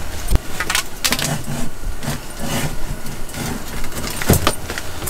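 Clicks and rattles of an ice-fishing rod and line being handled while a snagged line is broken off, with a sharper knock about four seconds in, over a steady low rumble.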